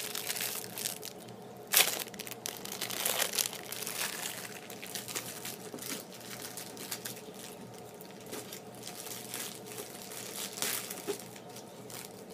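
Foil Pop-Tart wrapper crinkling in irregular bursts as it is handled and opened, loudest about two seconds in.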